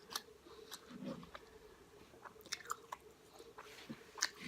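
A person chewing food close to the microphone, with scattered small wet mouth clicks.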